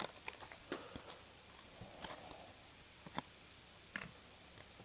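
Faint, sparse ticks and flicks of a stack of baseball trading cards being handled and flipped through by hand, about five soft clicks spread over a few seconds.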